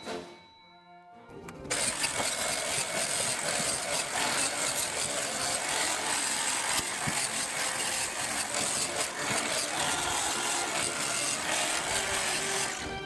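An engine starts suddenly about a second and a half in and keeps running steadily and loud, then cuts off near the end.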